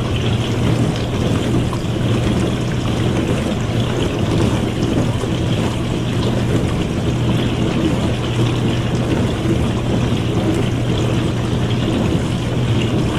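Dishwasher running, water spraying inside the tub over a steady low hum.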